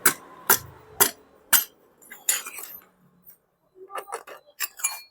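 Metal parts of a scooter's CVT drive clinking as they are handled: four sharp metallic taps about half a second apart, then lighter scattered clinks.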